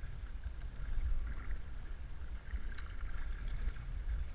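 Canoe paddles dipping and pulling through the water, with water swishing along the hull and a steady low rumble of wind on the microphone.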